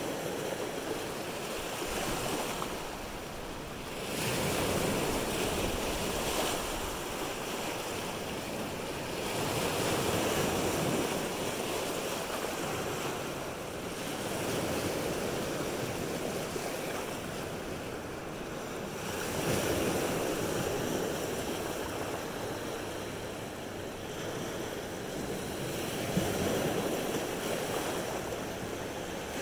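Lake Michigan surf washing in on the shore, swelling and easing every five seconds or so.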